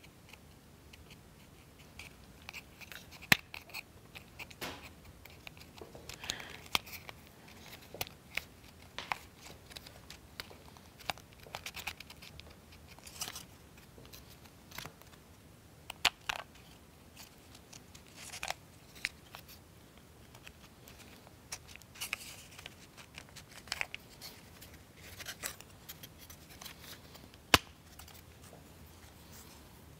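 Plywood model-kit parts handled and pressed into place: scattered light clicks and taps with brief scrapes of wood on wood, and a few sharper clicks.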